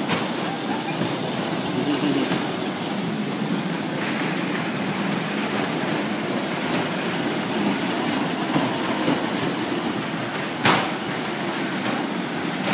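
Battery-powered toy car running, a steady motor whir and rumble, with one sharp knock about ten and a half seconds in.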